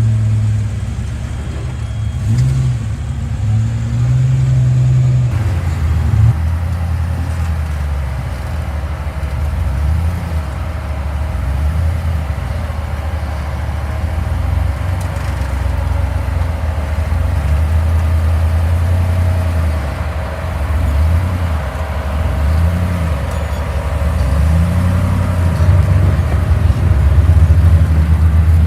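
Engine sound effect laid over an RC scale crawler, a low-pitched motor note that keeps rising and falling in short revs as the truck crawls.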